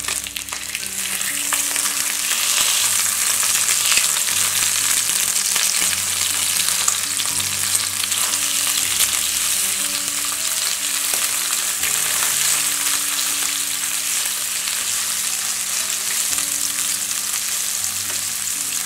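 Salmon fillets sizzling steadily in hot oil in a non-stick frying pan, with light scrapes and taps of a spatula and spoon as the fillets are turned skin side up.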